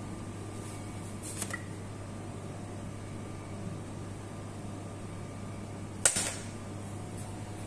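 A steady low mechanical hum, with a faint click about a second and a half in. About six seconds in comes a sharp click as a spice jar with an orange plastic cap is picked up by a gloved hand.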